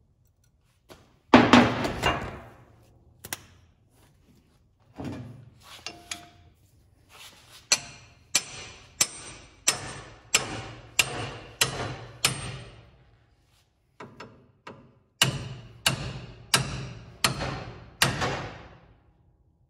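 Hammer blows on a steel pickle fork driven between a tie rod end and the steering knuckle to pop the tie rod's tapered stud loose, each blow ringing metallically. The heaviest blow comes about a second in. A steady run of about seven blows a little over half a second apart follows, then a short pause with light taps, then five more hard blows near the end.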